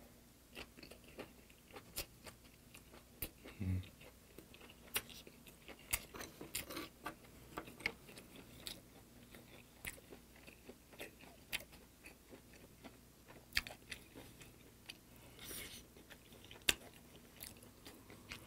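Close-miked eating of braised sardines and potatoes: wet chewing and lip smacks with many sharp clicks throughout. There is a short low hum about four seconds in.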